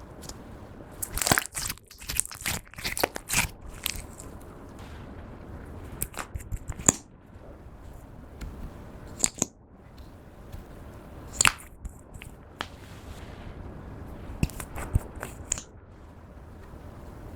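Clear slime being kneaded and pressed by hand, giving bursts of sharp crackling and popping clicks every few seconds, with quieter squishing between them.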